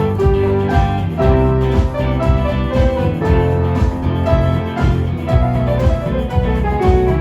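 Live band playing music: a melody of held notes over a steady bass line and a regular beat.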